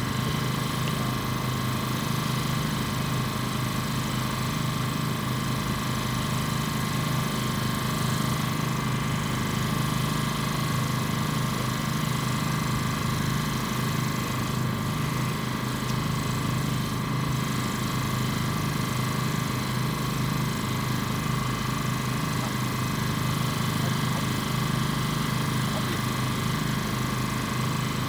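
Steady, unchanging drone of a running engine, a low hum with a fainter, higher steady whine above it.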